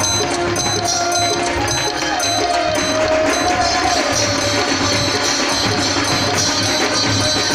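Music with percussion and a steady beat, a single melody line held and wavering in pitch over the first half.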